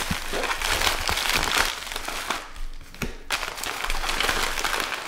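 Plastic packaging crinkling and rustling as bagged bullion coins are pulled out of a plastic shipping mailer, with a brief lull a little past halfway.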